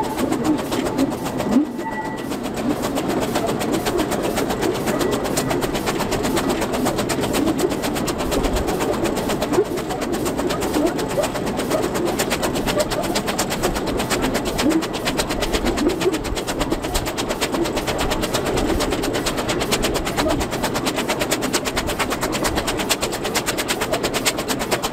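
Small narrow-gauge steam locomotive running along the line, heard from its cab, with a rapid, even beat.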